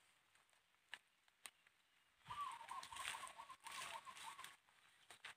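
A bird calling in a quick run of short, repeated notes for about two seconds, starting about two seconds in, over a faint hiss. Two small clicks come before it.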